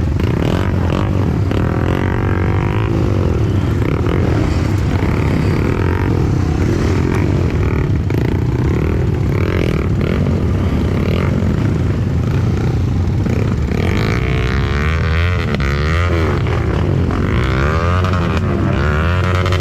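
Dirt bike engine running throughout, revving up and down several times in the last few seconds.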